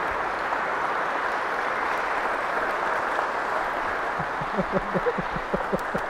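Congregation applauding steadily in a reverberant church, with sharper, louder individual claps close by standing out from about four seconds in.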